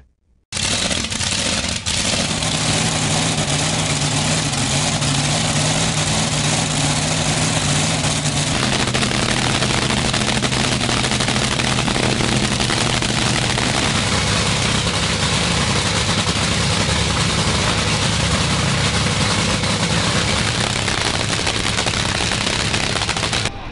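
Supercharged, nitromethane-burning top fuel drag boat engine running steadily and loudly at a warm-up, its note shifting about eight seconds in.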